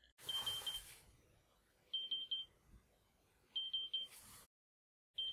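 JBL Horizon alarm clock sounding its buzzer alarm tone: short high beeps in quick groups of three, the group repeating four times about every second and a half.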